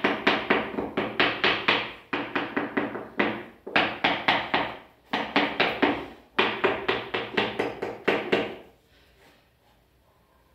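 Rapid tapping on a ceramic floor tile to bed it into fresh mortar, about five taps a second in several bursts, stopping near the end.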